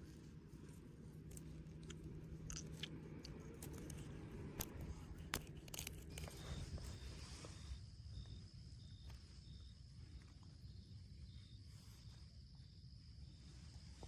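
A few sharp clicks and rustles of handling in the first half. Then, from about six seconds in, night insects calling: a steady high buzz with a regular chirp about twice a second.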